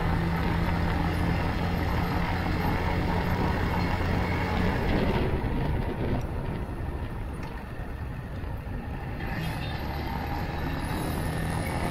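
A 200cc motorcycle's engine running under way, with wind and road noise. About five seconds in the engine note drops away and the level dips, and it comes back from about ten seconds in.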